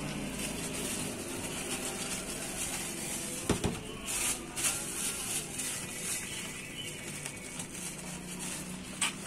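Thin plastic food bag rustling and crinkling as it is filled and twisted shut by hand, with a single sharp knock about three and a half seconds in.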